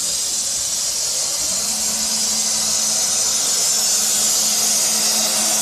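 SWZ7009 CNC beam drilling machine starting up in its drilling test. A loud, steady hiss of air or spray cuts in at once, and a steady low hum joins about a second and a half in.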